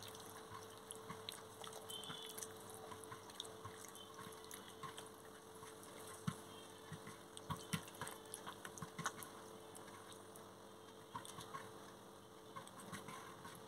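A bare hand squishing raw chicken pieces through a thick spice marinade on a steel plate: faint, irregular wet squelches and clicks over a steady low hum.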